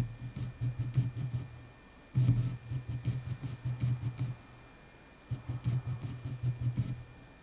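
Low throbbing drone that comes in swells about every three seconds, each starting suddenly and fading over about two seconds, with a faint steady high tone beneath.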